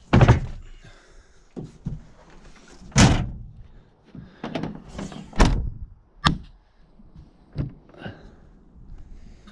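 A series of heavy thumps and knocks, about seven in all, like doors banging shut. The loudest come right at the start and about three seconds in.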